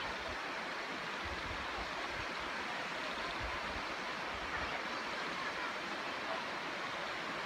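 Waterfall spilling down a steep rock face: a steady rushing hiss of falling water.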